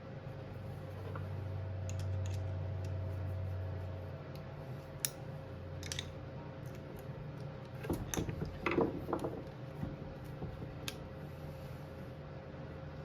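Hand tools and radiator hoses on a two-stroke dirt bike being worked loose: scattered sharp clicks about five and six seconds in and a short clatter of handling just past the middle, over a steady low hum.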